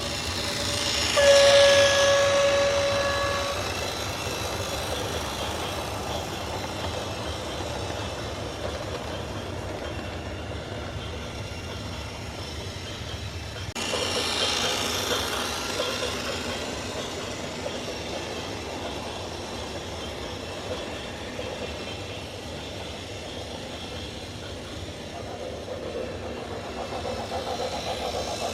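A horn blows one steady note for about two seconds, about a second in, over a continuous heavy-vehicle rumble; the rumble changes abruptly about halfway through.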